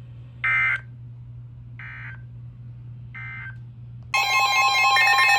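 Emergency Alert System weather radio broadcast: three short bursts of warbling SAME digital data tones about a second and a half apart, marking the end of one warning message. About four seconds in, a loud pulsing electronic alert tone with several pitches starts, announcing the next warning.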